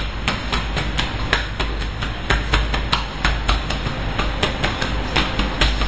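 Hands striking a patient's back in percussive massage: quick, even slaps or chops, about four to five a second, over a steady low rumble.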